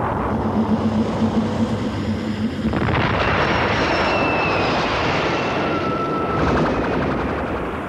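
Cartoon sound effect of a spaceship taking off: a steady rumble and rush of rocket exhaust, with a low pulsing hum for the first couple of seconds. The rush swells about three seconds in, with faint high whistling tones over it, and thins out near the end.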